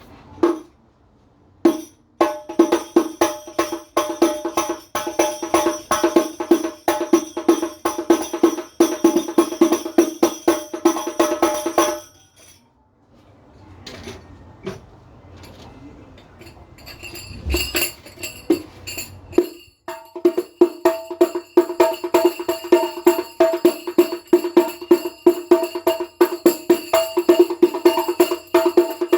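Hadroh rebana frame drums with thick, tightly stretched skin heads played by hand in fast, continuous rhythmic patterns, each stroke ringing with a clear pitch. The playing stops about twelve seconds in, leaving a few scattered strokes, and picks up again with a slightly brighter tone about seven seconds later.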